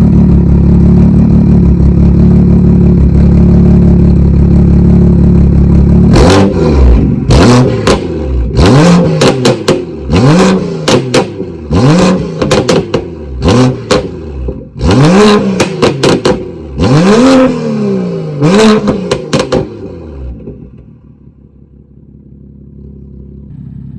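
Decatted, tuned BMW M2's turbocharged straight-six running steadily, then blipped about eight times, each rev rising and falling with sharp cracks from the exhaust: an inhuman racket. It settles to a quieter idle near the end.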